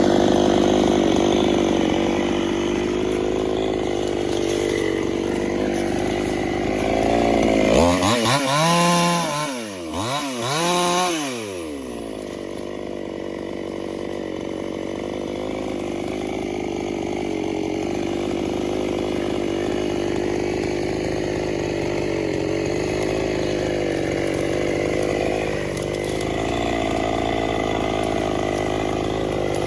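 Chainsaw engine running under load while cutting through a large tree trunk. About a third of the way in, the saw's pitch shoots up and drops back twice in quick succession as the throttle is blipped. It then settles into a steady, lower-pitched working note.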